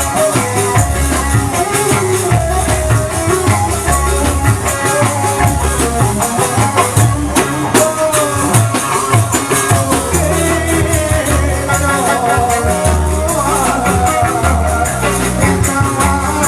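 Live band music played through an amplified sound system: a steady beat with drums and a shaker-like rattle, a continuous bass, and a wavering melody line.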